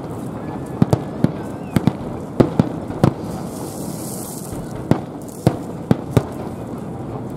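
Aerial fireworks shells bursting: about a dozen sharp bangs at uneven intervals, some in quick pairs, over a steady background noise, with a short high hiss about halfway through.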